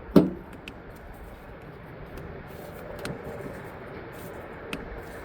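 A single sharp metallic clank just after the start, with a brief ring, then a few light clicks and taps of metal parts being handled over a steady background hum.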